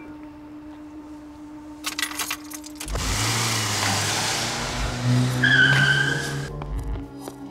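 Car pulling away hard: engine revving with a loud rush of noise, and a short tyre squeal about five and a half seconds in. A few sharp clicks come just before, about two seconds in.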